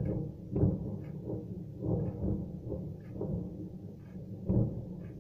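Distant explosions at a burning ammunition depot: a rapid, irregular run of low booms and thuds, several a second, with the strongest about half a second in and again near the end.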